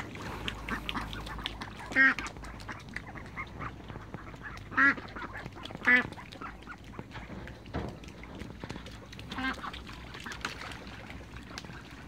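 Domestic ducks quacking: four short, loud quacks spaced a few seconds apart, over soft background clicking.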